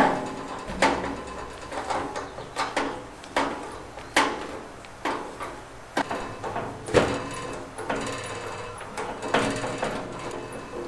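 Irregular metal clicks and knocks, one or two a second, each with a short ring, as the metal gas tubing and fittings of a gas water heater's burner assembly are handled and fitted at the burner access opening.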